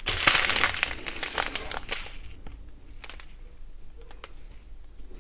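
Small plastic bags of diamond painting drills crinkling as they are handled. The crinkling is densest for about the first two seconds, then a few sparse crackles and ticks follow.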